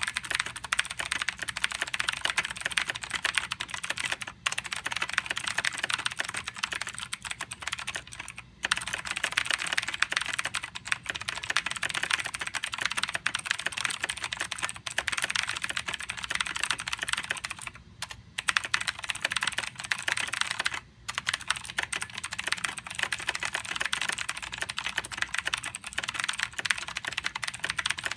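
Very fast typing on a computer keyboard: a dense, continuous stream of key clicks with a few brief pauses.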